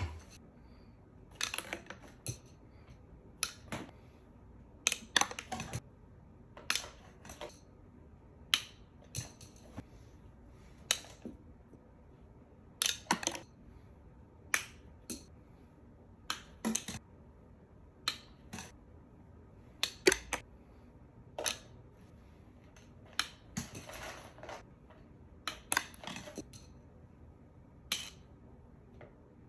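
A run of sharp, light clicks and taps at irregular intervals, roughly one or two a second, some in quick pairs: plastic drinking straws being thrown and striking the pencil sharpener and the floor.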